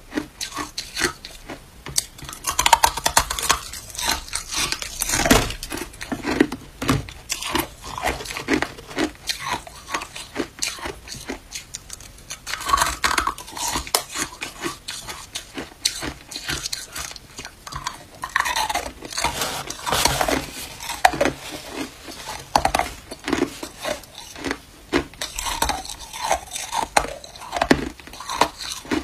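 Hard crushed ice being bitten and chewed close to the microphone: a dense run of sharp, irregular crunches and cracks, with chunks of ice clinking against a plastic container as pieces are picked out.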